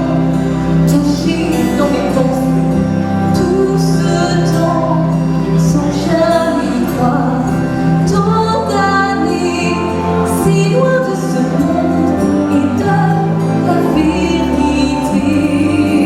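Show music from a stage musical: a full orchestral backing track with a steady bass line and percussion, and a woman's singing voice above it.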